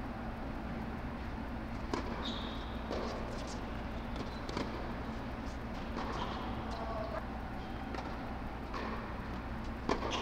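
Tennis rally on an indoor hard court: sharp pops of racquets striking the ball and the ball bouncing, a couple of seconds apart, the loudest near the end, with short high squeaks of tennis shoes between them. Under it runs a steady low hum from the air-supported dome's blower.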